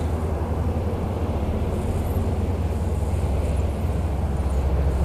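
Wind buffeting the microphone: a steady low rumble with a rapidly fluttering level.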